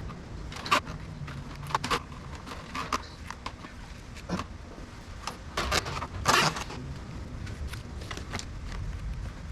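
Irregular clicks, taps and scrapes of wiring and small parts being handled during a switch panel install, with one longer rustling scrape a little past six seconds in, over a steady low hum.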